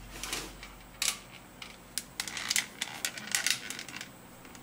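Segmented plastic coolant hoses being bent and snapped into position by hand, an irregular run of sharp clicks and crackles.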